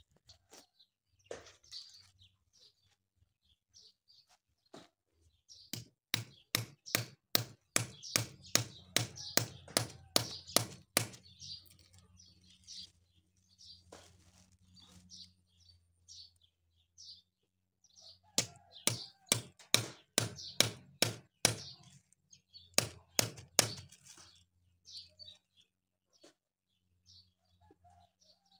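Hoof knife cutting into a cow's hoof in quick, crisp strokes, about three a second: a long run about six seconds in, then two shorter runs later. Birds chirp in the background.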